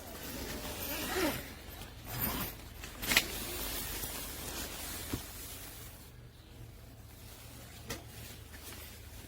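Handling noises from a pop-up tent: short zipping and rustling sweeps in the first couple of seconds, a sharp snap about three seconds in, then quieter with a couple of faint clicks.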